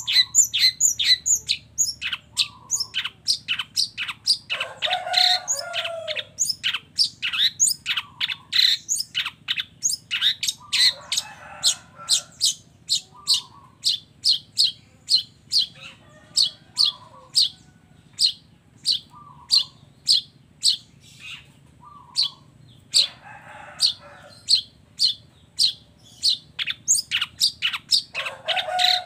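Long-tailed shrike (cendet) singing: a fast run of sharp, high repeated notes, about two or three a second, broken several times by lower, harsh chattering phrases.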